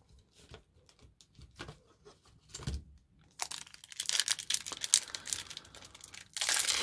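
Foil trading-card pack wrapper crinkling and being torn open. A few faint ticks come first; the crackling starts about three and a half seconds in and grows loudest near the end.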